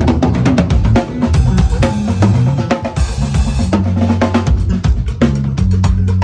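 Drum kit played in rapid fills of snare and bass-drum hits, with a cymbal crash about three seconds in, over a sustained low bass tone.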